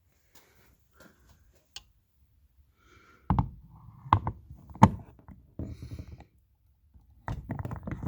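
A few faint ticks, then a series of sharp clicks and knocks from a screwdriver with a T20 Torx bit working a screw out of a car's door trim, with tool and plastic handling noise near the end.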